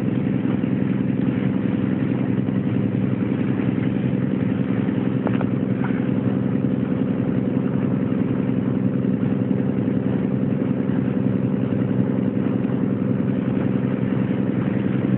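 A boat's engine running steadily at cruising speed, heard from on board as a constant, even drone.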